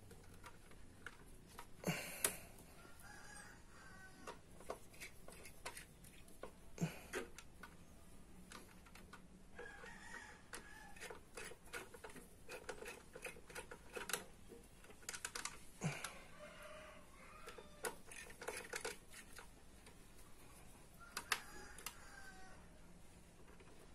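Scattered clicks and knocks of hands handling a CPU water-cooler's plastic pump head, mounting and cables inside a desktop PC case, the sharpest about two seconds in. Between them come a few short chicken calls in the background.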